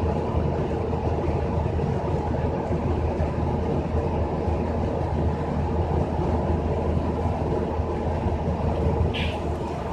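Steady low rumble and hum of a bus interior while the bus is moving, with one brief higher, hissy sound about nine seconds in.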